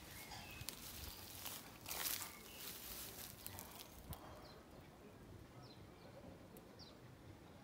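Irregular rustling and scuffing from the phone being handled while walking, loudest about two seconds in, with a sharp click near the middle. Then faint garden birds chirping in short falling notes.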